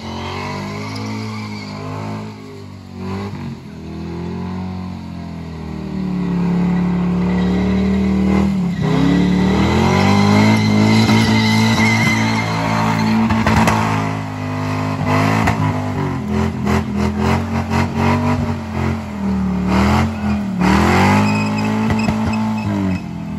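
Holden VY Commodore SV8's V8 engine revving hard during a burnout, its tyres spinning and skidding on the pad. The engine note holds high with short dips, grows louder about six seconds in, and in the second half flutters rapidly up and down.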